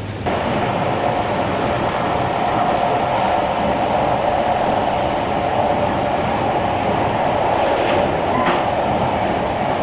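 Passenger train running at speed on the Trans-Siberian line: a steady rolling rumble of wheels and carriage with a droning note.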